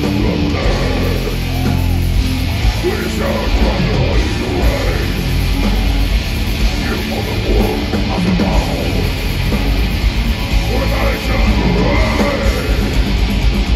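Death metal band playing live through a festival PA, heard from the crowd: heavily distorted guitars, bass and drums with shouted vocals over them.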